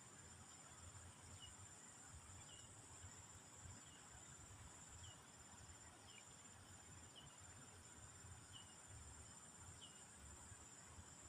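Faint, steady high-pitched drone of insects, such as crickets, with a short faint chirp repeating about once a second.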